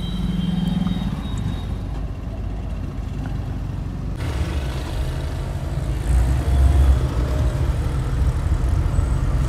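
Car engine and road rumble heard from inside the cabin: a steady low rumble while stopped in traffic. About four seconds in, it changes to a louder rumble as the car drives along the road.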